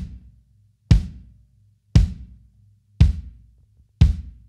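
Sonor AQ2 20x14-inch kick drum struck in a steady beat, about one stroke a second, five in all. Each stroke is a short thump with a bright beater click on top, from a low-tuned clear Remo Powerstroke 3 batter head, a ported front head, and two blankets muffling the drum inside.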